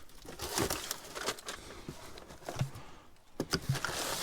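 Scrap and debris being rummaged through by hand: scattered knocks, clicks and rustles as pieces are moved about.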